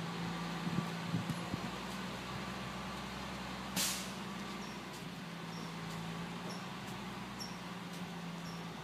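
Garbage truck engine running steadily as the truck moves off down the street, with one short, sharp air-brake hiss about four seconds in.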